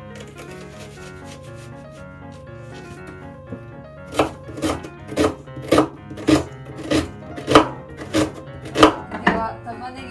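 Kitchen knife chopping an onion on a wooden cutting board: quick light cuts at first, then from about four seconds in about ten heavier chops, a little under two a second.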